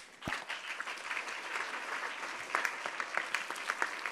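Audience applause: many hands clapping steadily, with a low thump as it begins.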